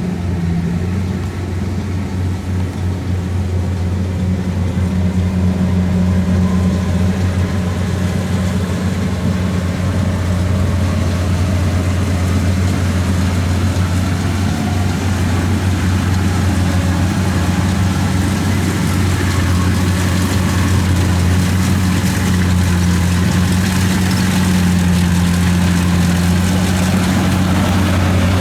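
Kubota DC-70 combine harvester's diesel engine running steadily with a deep, even hum, growing louder over the first few seconds and then holding.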